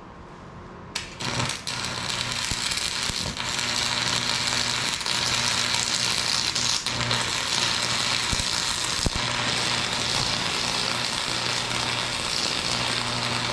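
Lincoln AC180S AC stick welder's arc crackling steadily over a low electrical hum, starting about a second in. The amperage is set a little high for the thin steel, as the welder himself thinks.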